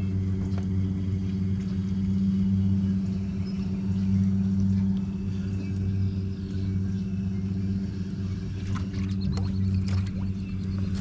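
Outboard motor on a 12-foot aluminum boat running steadily at low trolling speed, a constant low drone. A few light clicks near the end.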